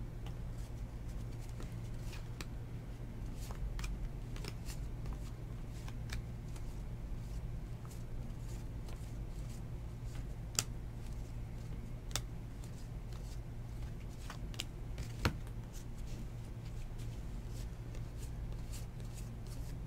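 A stack of Topps baseball cards being flipped through by hand, card after card slid off the pile, making soft scattered clicks and rustles of card stock with a few sharper snaps in the second half. A steady low hum runs underneath.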